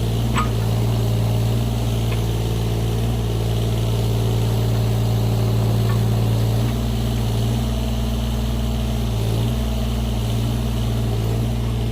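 Excavator's diesel engine running steadily. Its note drops slightly a little past halfway through and wavers a few more times after that.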